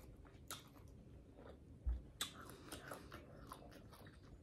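Faint mouth sounds of chewing chicken Alfredo ramen noodles close to the microphone: scattered wet smacks and clicks, with a soft low thump about two seconds in.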